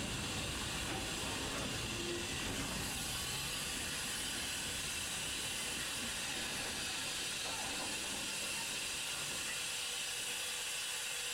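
Small steam locomotive hissing steadily as it works a short train of open wagons along the rails, with a low rumble of the wagons underneath that eases after the first few seconds.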